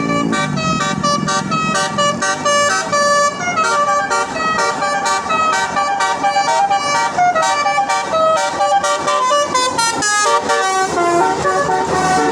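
Multi-tone 'telolet basuri' bus horn playing a rapid melody of short notes, one after another, stepping up and down in pitch.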